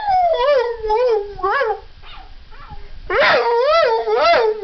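Pet dog howling in a sing-song 'talking' way: a run of short notes that waver up and down in pitch. There is a pause about two seconds in, then louder wavering notes from about three seconds in.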